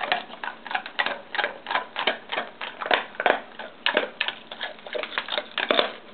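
St. Bernard crunching a Tootsie Pop's hard candy shell between its teeth: a quick, even run of sharp crunches, about five a second.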